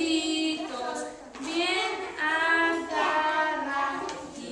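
A group of young children singing along with a woman, in long held notes.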